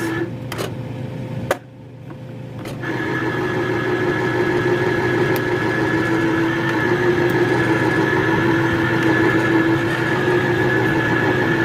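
Electric safety can opener's motor humming steadily. It stops just after the start, with a couple of clicks, then starts again about three seconds in and runs on. It is catching on the can's rim, which the owner thinks is dented.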